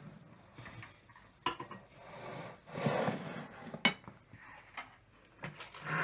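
A metal spoon stirring icing in a plastic mixing bowl, scraping and knocking against the bowl with a few sharp clicks, the loudest about four seconds in.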